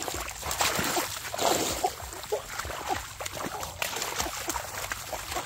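Irregular splashing and sloshing in shallow muddy water as a large snakehead fish thrashes and bare hands grab at it.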